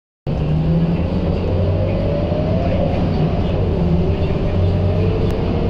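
Steady low drone of a Scania K230UB city bus's engine and road noise, heard from inside the moving bus. A whine in the middle pitch slowly rises, sags a little past halfway, then climbs again as the bus pulls along.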